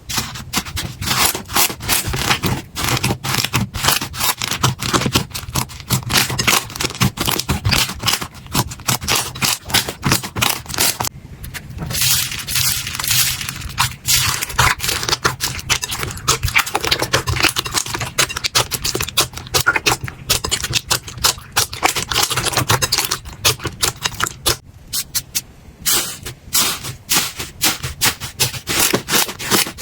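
Slime being squeezed, poked and stretched by hand, giving a dense run of rapid crackling, popping clicks and squelches, with two short breaks where the handling pauses.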